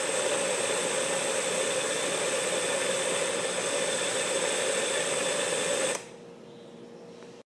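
Food processor motor running steadily as its blades grind peanuts into a paste, then cutting off suddenly about six seconds in.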